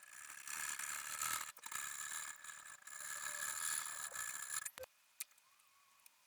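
A woodworking tool scraping or abrading wood, a continuous rasping sound for about four and a half seconds with a brief break, ending in a knock.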